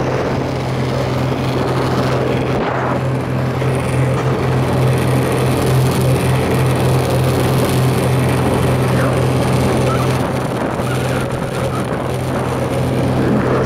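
Volga hydrofoil motorboat running at speed: a steady engine drone under rushing wind and water noise.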